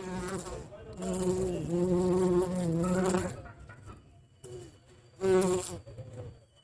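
Honey bee buzzing in flight, a low hum that comes and goes in three spells: a short one at the start, a longer stretch of about two seconds, and a brief burst near the end.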